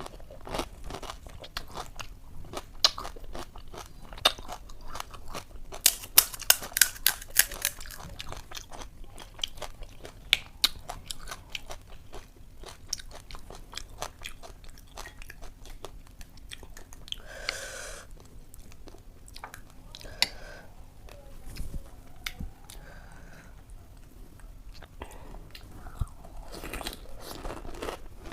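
Close-miked eating of puchka (pani puri): crisp fried shells crunching between the teeth, then chewing. A run of loud, sharp crunches comes about six to eight seconds in.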